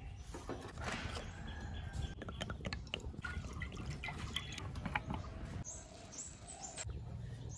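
Water poured from a plastic bottle into a wok on a gas burner, splashing into the pan, with light clinks of utensils and a brief hiss about six seconds in. Birds chirp faintly in the background over a steady low rumble.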